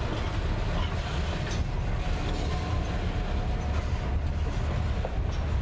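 Hopper freight cars rolling past on the rails. Their steel wheels give a steady rumble with clicks over the rail joints and a faint thin squeal.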